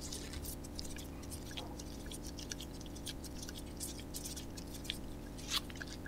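Faint, irregular small clicks and ticks of a hex key unscrewing the threaded pad retaining pin of a hydraulic disc brake caliper, with a slightly louder click near the end.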